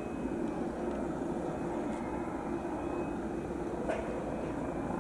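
Steady jet noise from a Boeing 747-8's four GEnx turbofan engines as the jumbo rolls along the runway after touchdown.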